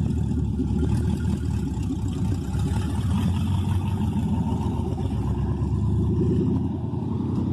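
2017 Chevrolet Camaro SS's 6.2-litre LT1 V8 running steadily and loud through open headers, its catalytic converters gutted and the exhaust dumping out under the car.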